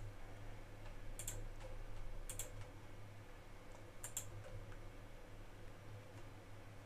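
Three short, faint clicks, about a second, two seconds and four seconds in, over a low steady hum.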